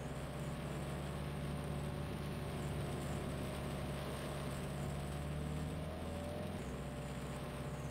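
A motor vehicle's engine running steadily, its low hum shifting slightly about six seconds in, over a constant hiss.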